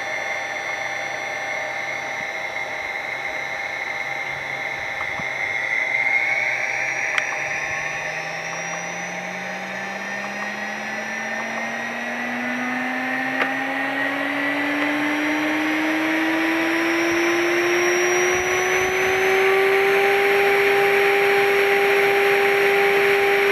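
2.2 kW water-cooled CNC spindle motor run from a Huanyang VFD, its whine climbing smoothly in pitch and getting louder as its speed is turned up. It levels off at a steady higher pitch for the last few seconds.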